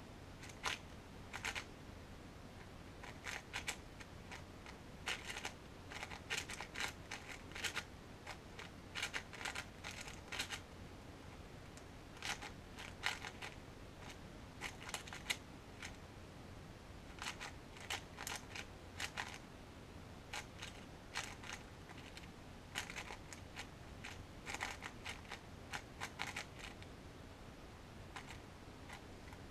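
QiYi MS 4x4 magnetic speed cube being turned fast in the hands: bursts of rapid plastic clicks from the layer turns, broken by short pauses.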